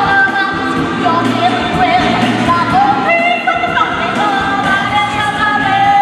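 A woman singing long, high held notes over a recorded musical backing in a stage show.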